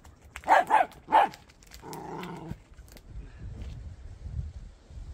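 Small dog barking three quick, sharp times, followed by a brief lower sound that cuts off abruptly. Low rumbling noise follows, and a sharp knock comes right at the end.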